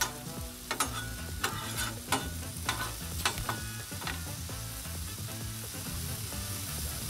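Diced potatoes sizzling in oil on a Blackstone flat-top griddle, with a metal spatula scraping and tapping on the steel as they are stirred and pushed into a pile. The scraping stops about four seconds in, leaving the steady sizzle.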